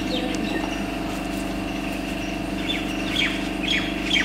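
Small birds chirping: a run of short, quick, downward-sweeping calls starting about halfway through, over a steady low hum.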